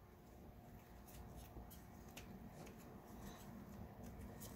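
Faint clicks and light handling noises from hands working a plastic bumper mount on a Traxxas TRX-4 chassis, over a low background hum; the whole is very quiet.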